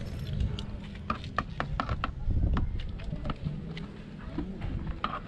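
Scattered light clicks and taps from hand work on a plastic car mud guard behind the rear wheel, over an uneven low rumble on the microphone.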